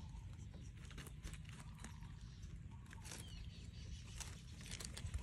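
Rabbit chewing a piece of raw carrot close to the microphone: irregular crisp crunching clicks over a low steady rumble.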